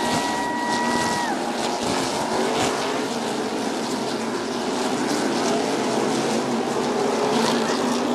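A pack of NASCAR stock cars' V8 engines running past at speed, a loud steady blend of engines. One car's high engine note drops in pitch as it goes by about a second in.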